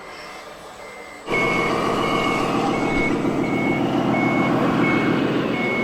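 Reversing beeper of a scale RC truck, a steady high beep repeating about one and a half times a second. About a second in, a loud, steady engine-like running noise starts abruptly under it.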